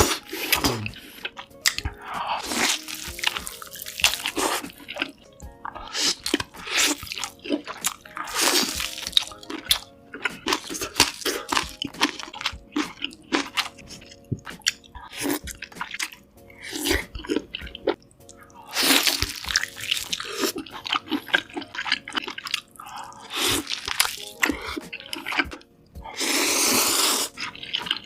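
Close-miked eating: bites, crunching and wet chewing heard as quick, irregular clicks and smacks, with a few longer noisy stretches, the loudest near the end.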